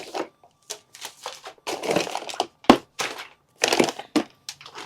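Hard plastic planter tiers and trays being handled and fitted together: a series of scraping, rustling knocks with one sharp click a bit over halfway through.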